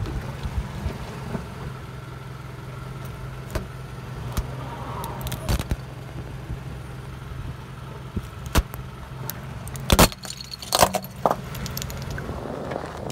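A car engine runs slowly as its tyre rolls over a plastic Rubik's cube. Several sharp plastic cracks and rattles come as the cube breaks apart, the loudest about ten seconds in.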